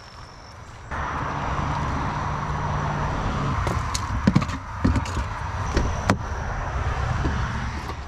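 A steady rushing noise begins suddenly about a second in, and over it come several knocks and clunks of gear being handled in a car's open cargo area, with a sharp click about six seconds in.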